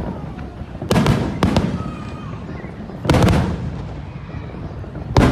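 Aerial fireworks shells bursting overhead: a loud bang about a second in, another half a second later, a bigger one about three seconds in and one more at the very end, each trailing off in a low rolling rumble.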